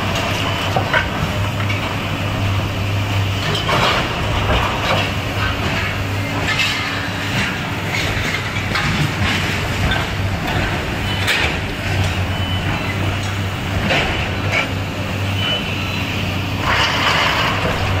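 Kobelco demolition excavator's diesel engine running steadily. Through it come repeated crashes and clatter as the machine tears down sheet-metal roofing and debris.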